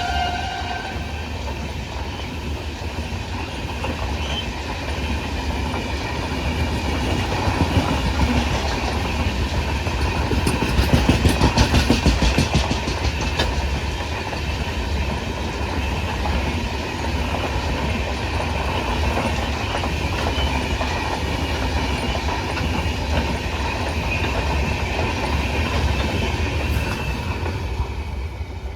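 Train running past on the track, a steady rumble with wheels clattering over rail joints in a regular rhythm, loudest about eleven to thirteen seconds in. A horn note ends about a second in.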